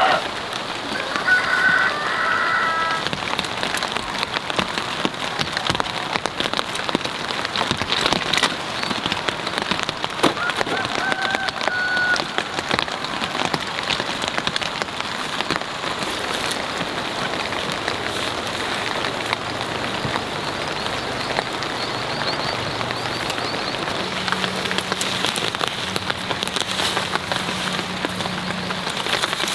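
Steady rain falling on leafy potato plants and bare soil, an even patter of many small drops.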